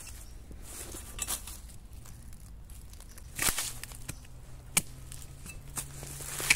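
Dry bamboo leaf litter rustling and crunching underfoot and under a digging spade, with a louder scrape about halfway and two sharp strikes of the spade blade near the end as it cuts in at the base of a bamboo shoot.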